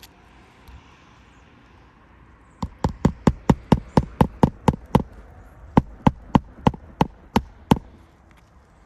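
Hammer driving roofing nails into asphalt shingles: about twenty quick, sharp blows, roughly four a second, with a brief pause partway through.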